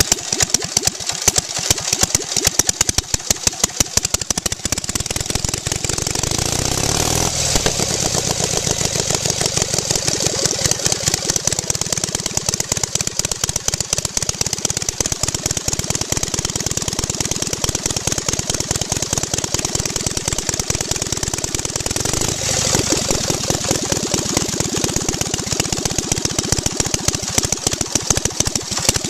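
Homebuilt V-twin engine on a Harley-Davidson motorcycle, its valve gear driven by exposed chains, running with a rapid, even stream of firing pulses. Its note shifts about seven seconds in and again around twenty-two seconds.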